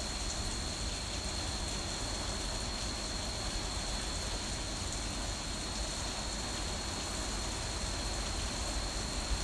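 Heavy rain falling, a steady even hiss with no thunderclap, with a thin steady high-pitched tone running beneath it.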